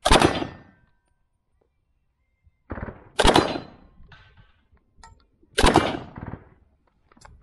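Gunshots: three loud reports about two and a half to three seconds apart, each trailing off over about half a second, with a smaller report just before the second.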